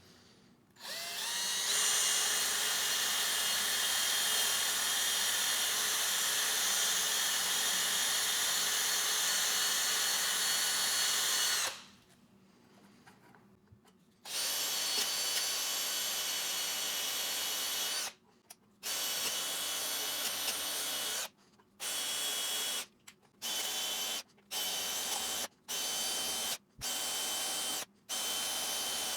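Handheld power tool spinning a wire wheel to scrub clean the mower's brake and kill-wire contact surface, where the high resistance keeps the engine from shutting down cleanly. It runs steadily for about ten seconds, stops, runs again for a few seconds, then starts and stops in a string of short bursts of about a second each.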